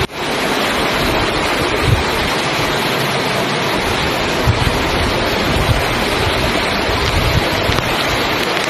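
Floodwater from an overflowing lake rushing along a street like a river, a steady loud rush of water with occasional low bumps of wind on the microphone.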